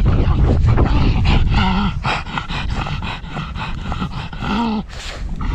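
A pug breathing hard in quick, regular strokes, heard close up from a camera mounted on her harness, with two short pitched grunts, one about a second and a half in and one near the end. Wind rumbles on the microphone throughout.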